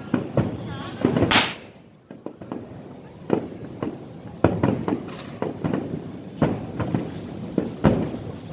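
Fireworks display: aerial shells bursting in a rapid, irregular series of bangs, with one louder, longer hissing burst about a second in.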